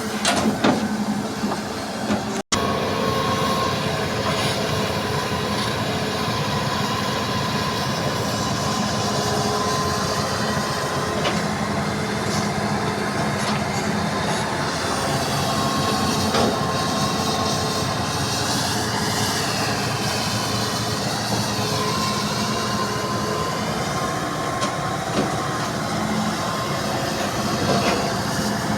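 Hydraulic excavator working steadily: the diesel engine runs under load with a steady whine from the hydraulics, wavering high squeals and a few metal knocks. The sound cuts out for an instant about two and a half seconds in.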